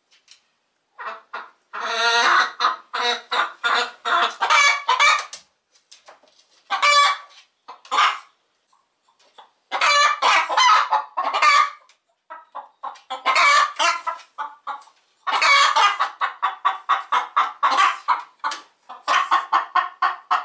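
Domestic hens cackling loudly, in several bouts of fast, repeated clucks with short pauses between them.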